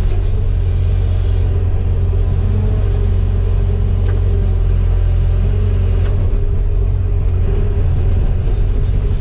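Cat 313FL hydraulic excavator's diesel engine running steadily with a deep, even rumble.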